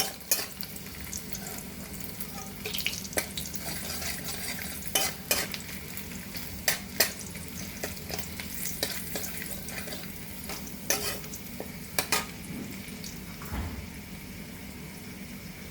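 Garlic sizzling in hot oil in a kadhai as it is stirred, with irregular sharp clicks and scrapes against the pan.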